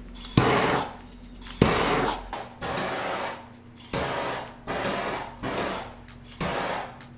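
A scraper dragged across the wax surface of an encaustic painting in repeated strokes, about seven in all, some starting with a sharp click, as the wax layer is scraped back.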